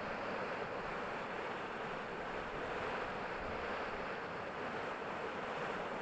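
Steady rush of a shallow creek pouring over low rock ledges in a small cascade.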